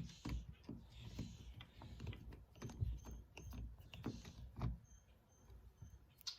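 Scattered light clicks and dull knocks of hand tools and small door-lock hardware being handled, as a Phillips bit is swapped and a screw readied.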